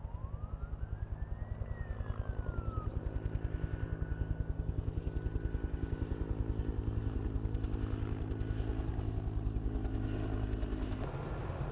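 Helicopter rotor and engine, with the rotor's fast, even beat running steadily as it flies overhead. A faint whistle-like tone rises and then falls during the first few seconds.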